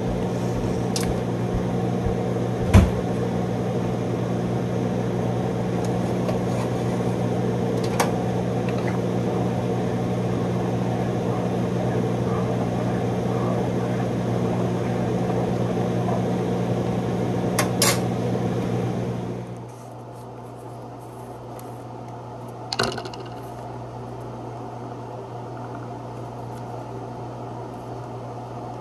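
A kitchen appliance's steady electric hum, with a sharp knock about three seconds in and light clicks of utensils and dishes. The hum cuts off about twenty seconds in, leaving a quieter steady hum, and a brief clatter follows.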